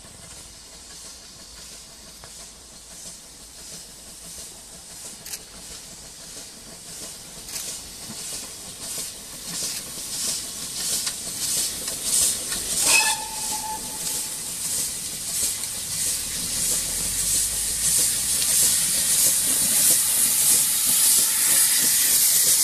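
Great Western Railway pannier tank steam locomotive No. 4612 working a passenger train, its rhythmic exhaust beats growing steadily louder as it approaches. It gives a short whistle about halfway through that drops in pitch.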